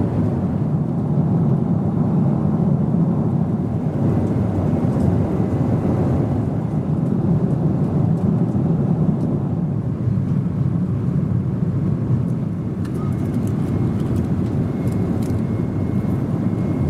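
Boeing 777 cabin noise in cruise flight: a steady, low rushing roar of engines and airflow heard from an economy seat. A few light clicks come in near the end.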